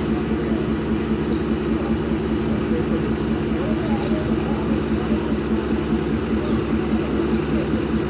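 ZCU-30 diesel-electric locomotive's engine idling while the locomotive stands still: a steady low drone with a constant hum.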